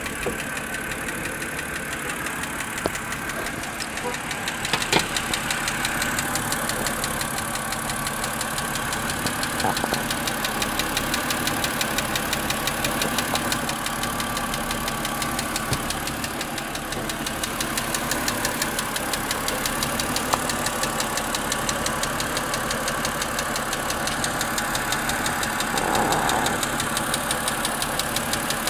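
2007 BMW X3 engine idling with a fast, even ticking or light knocking. The owner finds the noise comes on after a start, rises with throttle, and fades after 15–20 minutes of running, which he takes for a mechanical fault.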